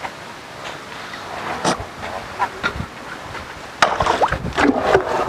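Elephant vocalising with short calls, then a sudden loud rush of noise and low rumbling about four seconds in.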